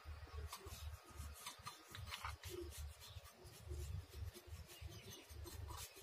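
Thin paintbrush rubbing and scratching as it strokes paint onto a homemade model tractor's metal body: faint, irregular scratchy strokes over a low rumble.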